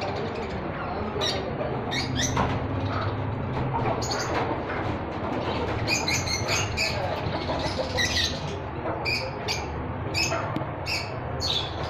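Pet birds chirping: many short, high calls scattered throughout, coming thicker in the second half, over a steady low background hum.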